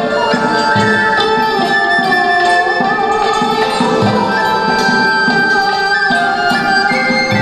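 Traditional Vietnamese music accompanying a water puppet show: a melody that bends and slides in pitch over a steady beat of low drum strokes.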